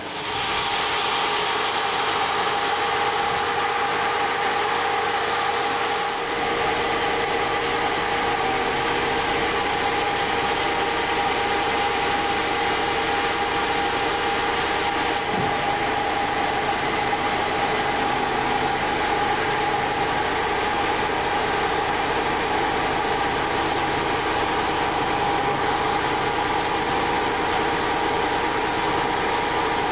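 Truck engine running steadily at idle while the crane truck's loader crane lifts the machine, with a steady hum in its sound.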